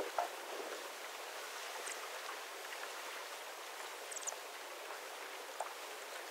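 Steady, quiet outdoor background hiss with a few faint light ticks scattered through it.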